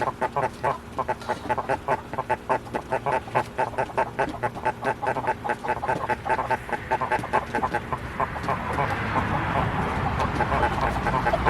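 Ducks and chickens crowded in a poultry crate, calling in a fast, continuous run of short quacks and clucks. A steady rushing noise builds up under them in the last few seconds.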